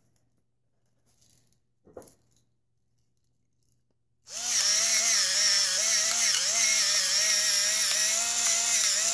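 Battery-powered electric pepper grinder switched on about four seconds in, its small motor running steadily with a slightly wavering whine over a hiss as it grinds peppercorns on a coarse setting. Before that there are only a couple of faint clicks.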